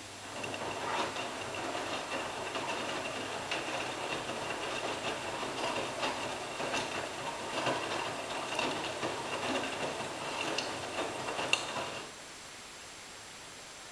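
AEG Lavamat 86760 front-loading washing machine's drum turning during a wash: a steady high whine under laundry tumbling, with frequent small clicks and knocks. It stops suddenly about twelve seconds in, just after one sharp click, as the drum comes to rest.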